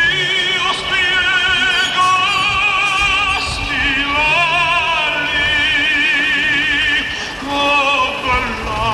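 Operatic singing with wide vibrato on long held notes, one note swelling up and falling back about halfway through.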